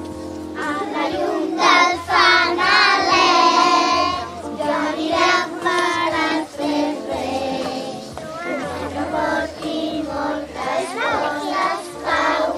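A group of children singing a song together, with instrumental accompaniment and a steady low bass line under the voices.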